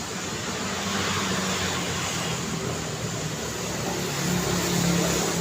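Street traffic: engines running and tyres on the road as cars pass, with an engine hum that grows a little louder near the end.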